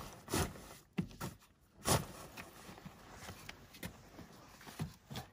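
Canvas of a Wild Land rooftop tent being tucked in by hand: a few short rustles and bumps, the loudest about two seconds in.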